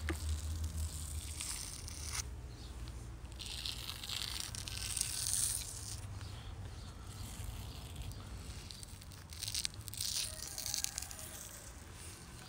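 Thin outer membrane being peeled off a raw beef liver by hand: a tearing, rasping sound that comes in several drawn-out pulls.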